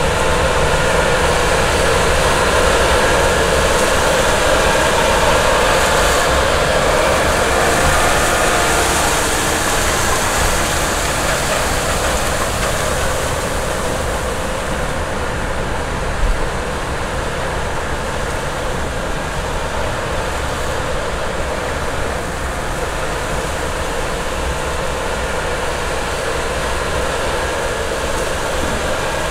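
CASE IH Ecolo-Tiger 870 disk ripper pulled through corn-stalk ground by a Steiger 370 HD tractor under load: a steady, dense noise of steel disks and shanks cutting through soil and stalks, over the tractor's running engine. It eases slightly after about twelve seconds, and a single sharp knock sounds about sixteen seconds in.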